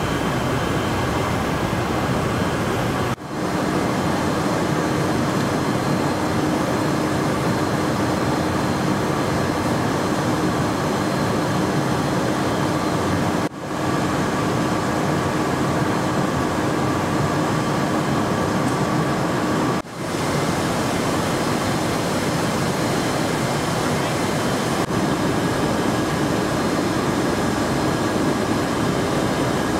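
Steady drone inside the cargo hold of a C-17 transport aircraft, an even rush of noise with a faint low hum. It drops out for a moment three times and comes straight back.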